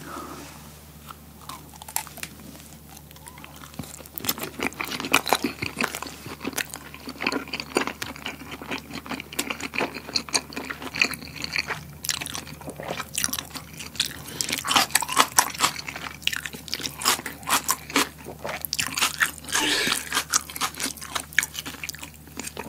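Close-miked chewing of a rice-paper wrap filled with spicy buldak fire noodles and dipped in mayonnaise. A bite is followed by many quick wet clicks and squelches of the chewing, which thicken after about four seconds.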